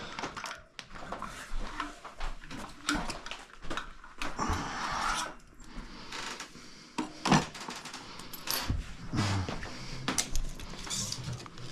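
Hand tools and bike parts being handled: scattered light clicks, knocks and rustles, with the sharpest knock about seven seconds in.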